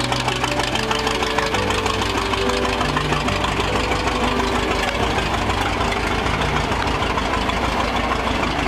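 Vintage Emerson-Brantingham tractor's engine running with a rapid, even firing beat.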